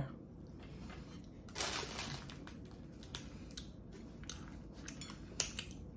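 Knife and fork working into a red bean sweet rice donut on a small plate: a soft rustle about a second and a half in, then a few light clicks of cutlery, the sharpest near the end.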